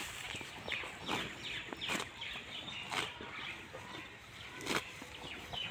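Water buffalo grazing close by, tearing off mouthfuls of dry grass with a short ripping crunch about once a second, while small birds chirp.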